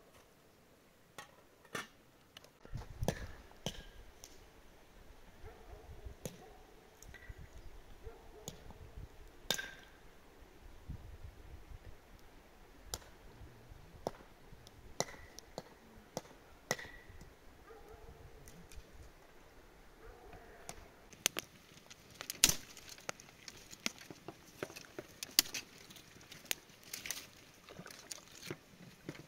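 Scattered clinks and knocks of cookware and utensils, coming thicker and faster near the end as a spoon works in a bowl, with low rumbles at times.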